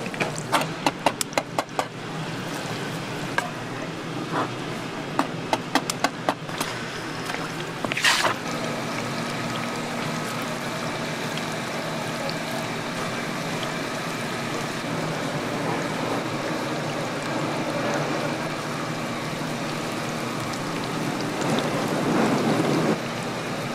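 Hot oil sizzling and bubbling steadily in a large deep fryer as handmade fish cakes fry. Sharp clicks and pops come over the first several seconds, with a short louder burst about eight seconds in and a louder stretch of sizzling near the end.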